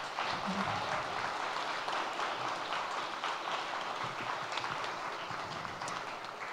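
Audience applauding: a steady patter of many hands clapping that tapers off slightly near the end.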